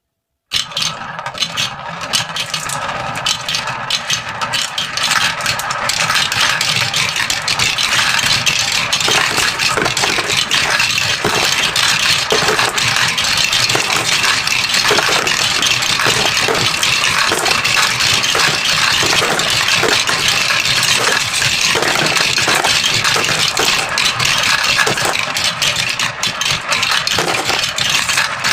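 Many marbles rolling and clattering down a marble run track: a dense, continuous rattle of small clicks that grows louder about six seconds in.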